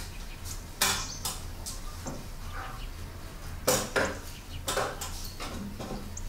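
Sharp taps and clinks in three close pairs, about a second, four seconds and five seconds in, over a steady low hum.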